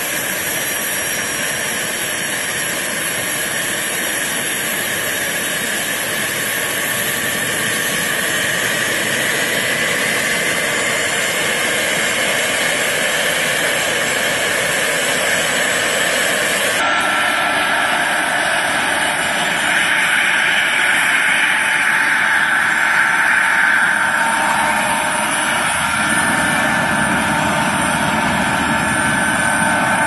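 Radio-controlled scale helicopter's motor and rotors running up for lift-off: a steady whining hiss that grows slowly louder, with an abrupt shift in the sound about halfway through.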